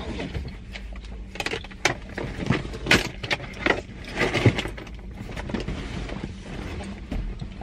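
Scattered clicks, knocks and rustling as a car seatbelt is unbuckled and things are gathered from the back seat, over a steady low hum.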